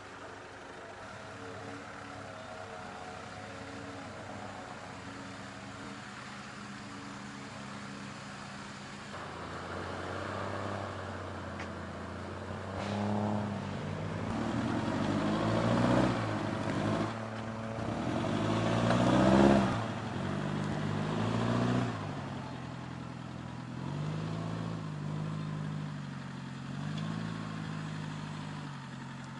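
Off-road 4x4's engine running steadily, then revved up and down repeatedly. It is loudest a little past halfway, and further rises and falls in pitch come near the end.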